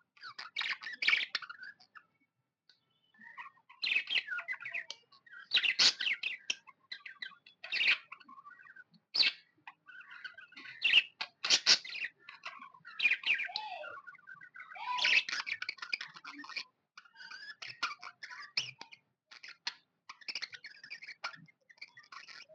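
Budgerigars (budgies) chirping in clusters of rapid high chirps and warbles, with short pauses between the clusters.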